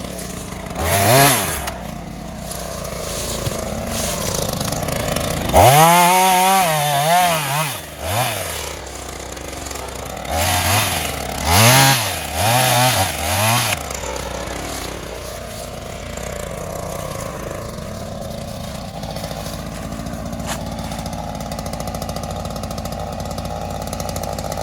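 Ryobi two-stroke gas chainsaw idling and revved in throttle blips: a short rev about a second in, a longer run at high revs around six seconds in, then several quick revs before it settles back to a steady idle for the last ten seconds.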